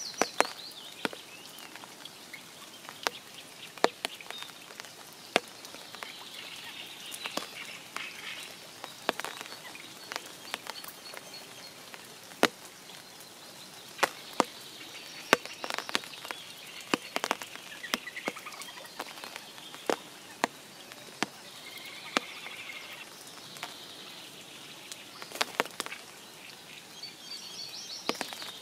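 Spring rain falling as scattered large drops, each a sharp tap, irregular at roughly one a second, over a faint steady hiss. Birds sing in short trilling phrases now and then.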